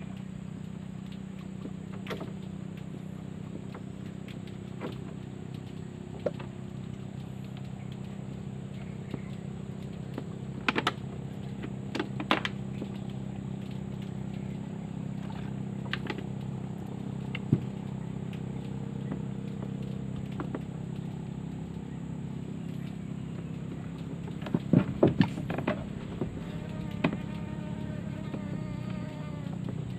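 Steady drone of a boat engine out on the river, growing slightly louder and changing pitch near the end, with a few sharp knocks on the wooden boat.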